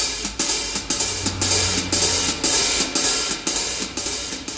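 Background music: a drum-kit beat with hi-hat and cymbals, about two strong hits a second.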